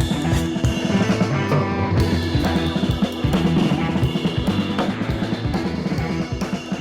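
Background music with a steady drum beat, drum kit and bass.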